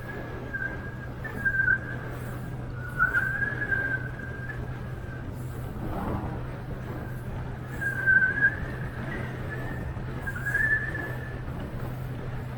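Boat engine running steadily under way, a low even drone with rushing noise over it, while a wavering high whistle swells and fades about four times.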